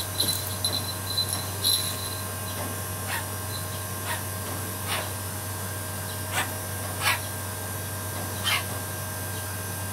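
Young brahminy kite giving short, thin, falling whining calls, about six of them spaced a second or so apart.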